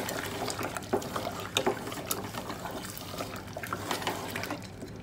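Wooden spoon stirring beef bones through thick curry gravy in an aluminium pot: wet, sloppy stirring with irregular crackles and scrapes. The gravy is being fried down (bhuna) on the heat after yogurt has been added.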